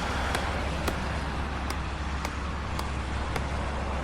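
Steady low rumble of heavy construction-site machinery, such as a truck engine running, with light ticks about twice a second.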